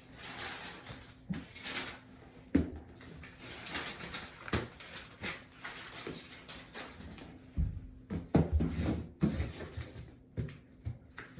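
Handling noise from laying out an under-floor heating mat: irregular rustling of the mat and its adhesive tape, with scattered light knocks as it is pressed onto the floor.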